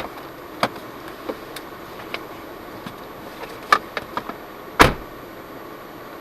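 Steady vehicle hum inside a Jeep Cherokee Trailhawk on an off-road trail, with scattered clicks and knocks and one loud thump almost five seconds in.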